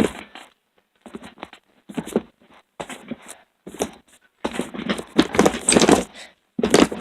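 Handling noise from the phone being spun around: irregular rubbing, scraping and knocking right on the microphone, busiest in the second half.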